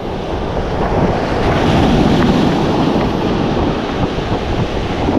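Ocean surf washing in against the shore, with wind buffeting the microphone; the rush of water swells about a second in and stays loud.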